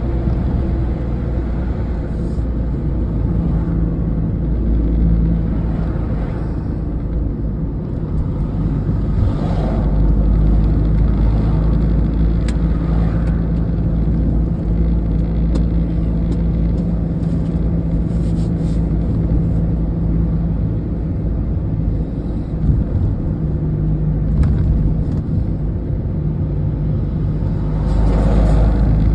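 Steady engine hum and tyre rumble inside the cabin of a vehicle driving at road speed, getting a little louder near the end.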